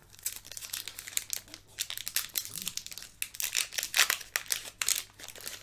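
Foil wrapper of a Pokémon card booster pack crinkling and crackling in the hands as it is torn open, with the loudest crackle about four seconds in.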